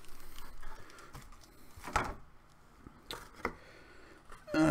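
Paper and cardboard rustling with a few sharp taps and clicks as items from a subscription box are handled, the loudest tap about two seconds in.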